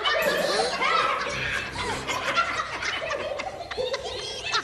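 Several cartoon hyena voices cackling and laughing at once in overlapping bursts, answering a lion cub's laugh.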